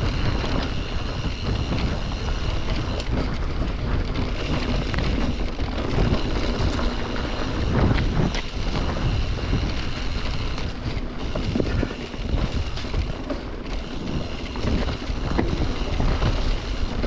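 Wind rushing over the microphone of a mountain biker riding a trail, with tyre noise and short knocks and rattles as the bike goes over bumps.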